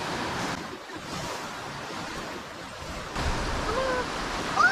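Small surf waves washing up the beach, with wind rumbling on the microphone from about three seconds in.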